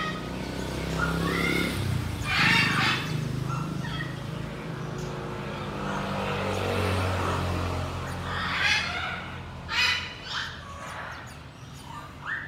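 Chinese hwamei calling in short bursts of harsh, chattering notes, with a few quick gliding whistles, over a steady low mechanical hum.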